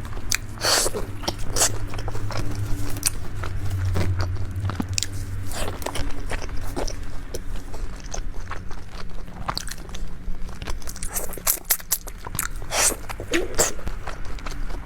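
Close-miked eating: a person biting into and chewing food, with many short sharp mouth clicks throughout. A low steady hum runs underneath.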